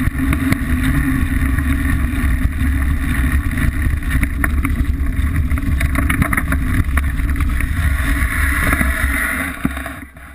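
Frame-mounted camera on a Liteville 301 mountain bike picking up heavy wind rumble and tyre noise on dirt and gravel, with scattered clicks and rattles from the bike. The noise drops away about nine and a half seconds in.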